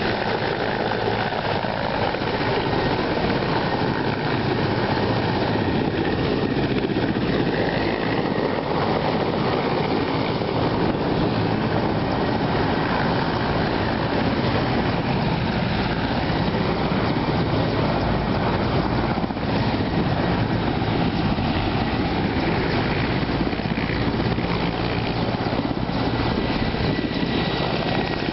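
Mi-8 helicopter landing: the steady beat of its main rotor over the whine of its twin turboshaft engines, holding at an even loudness as it descends and settles on the grass, with a faint high steady whine.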